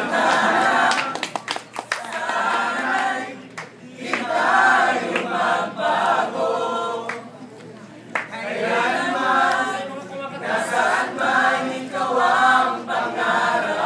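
A mixed group of young men and women singing together in chorus, in sung phrases separated by short pauses.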